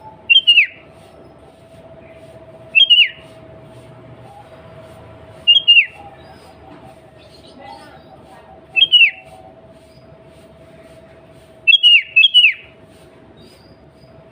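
Sooty-headed bulbul singing short phrases of two or three quick, falling whistled notes, about one phrase every three seconds. The last phrase is a longer run of several notes. A steady faint hum runs underneath.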